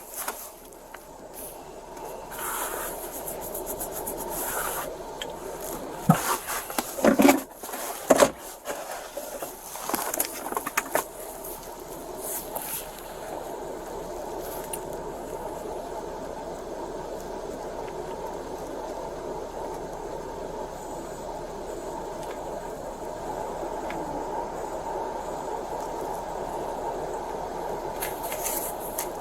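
Rubbing and scraping with a few sharp knocks over the first ten seconds or so, the loudest about six to eight seconds in, as a body-worn camera's wearer moves and gets into a car. After that a steady hum fills the car's interior.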